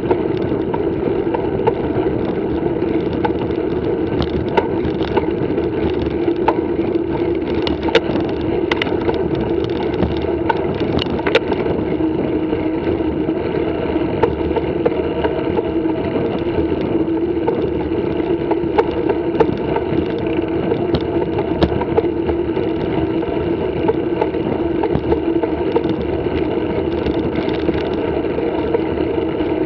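Mountain bike rolling along a rough concrete lane: a steady hum of knobby tyres on the surface, with frequent sharp clicks and rattles as the bike jolts over cracks.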